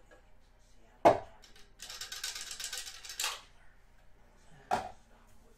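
A sealed box of baseball cards being opened: a sharp knock, then about a second and a half of rapid crackling as its wrapping is ripped, then another knock.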